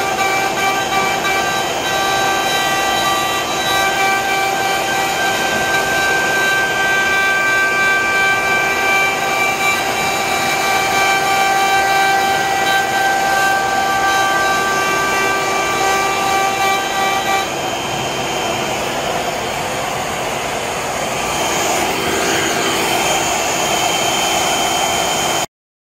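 CNC router spindle cutting into wood on a Romaxx WD-1 CNC machine: a steady high whine over the rush of the dust-collection vacuum. The whine drops away about two-thirds of the way through, and the sound cuts off just before the end.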